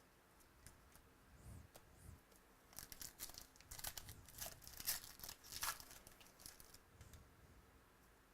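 Foil wrapper of a basketball trading-card pack being torn open and crinkled: a run of crackling from about three to six seconds in, with a few light clicks before and after.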